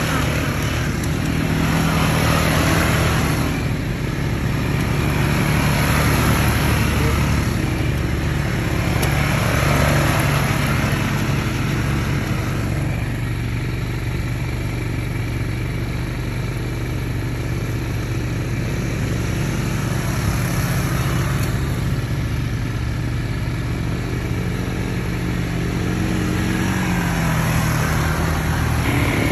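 ATV engine running steadily under way, a constant low engine hum with rushing noise that swells and fades every few seconds.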